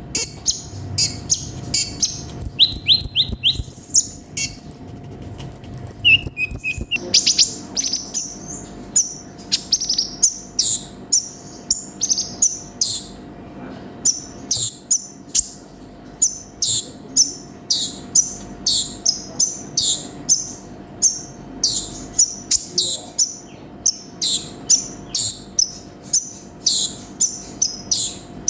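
Sunbird (konin, kolibri ninja) singing: a long run of sharp, high chirps at about two a second. In the first few seconds there are short high trills and a few lower falling notes.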